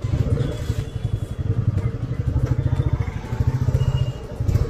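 Royal Enfield Meteor 350's single-cylinder engine running as the motorcycle is ridden, its level rising and falling.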